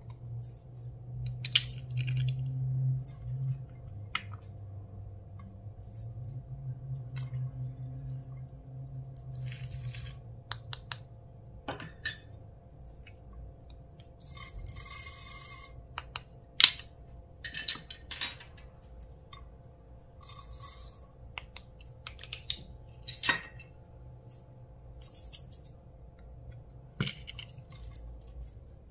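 Slime being mixed by hand: irregular squishy crackles and small pops, with sharper clicks here and there.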